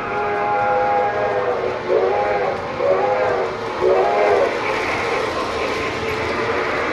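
Sound-system steam whistle of an O-scale model steam locomotive (QSI QS-3000) playing a chime whistle signal through the engine's speaker: the end of a long blast, then three short toots, the long-short-short-short sequence that calls up the water scoop effect. Near the end a rushing noise builds as the water scoop sound starts, over the locomotive's running sound.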